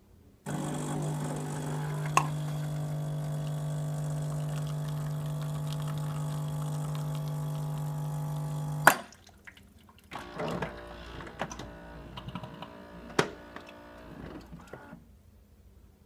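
Saeco Aulika espresso machine brewing: its pump hums steadily for about eight seconds, with a click early on, and stops with a sharp click. A second later come about five seconds of irregular crackles and clicks.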